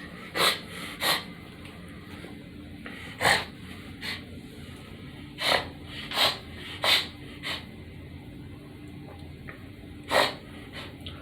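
A person forcing short, sharp bursts of breath out through the nose, about nine of them at irregular gaps.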